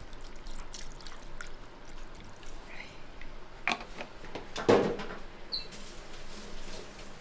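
Dark marinade poured from a plastic jug into a plastic tub of raw egg yolks, trickling and dripping as the pour ends. Then two knocks, the louder about four and a half seconds in.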